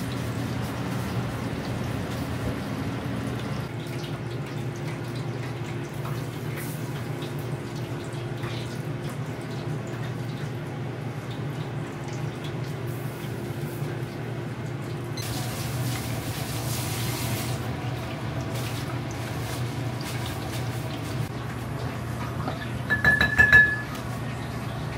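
Chicken pieces deep-frying in a commercial fryer: the oil sizzles and bubbles steadily over a low, steady hum. Near the end comes a brief high electronic beep with a few clicks.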